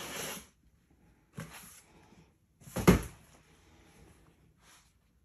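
Packing material in a shipping box rustling as it is handled: a longer rustle at the start and a shorter one about a second and a half in. Then one dull thump just before the three-second mark, the loudest sound here, followed by faint handling rustles.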